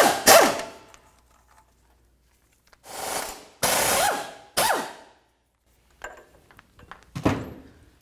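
A power tool spinning a socket on an extension, running out the starter mounting bolts in several short bursts, each winding down in pitch as it stops. Light metallic clicks follow, and a knock comes just after seven seconds.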